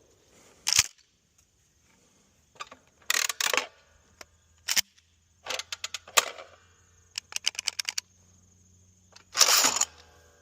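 A string of sharp clicks and clacks in several short bursts with quiet gaps between them, including a quick run of rapid clicks about halfway through, then a short, louder burst of noise near the end.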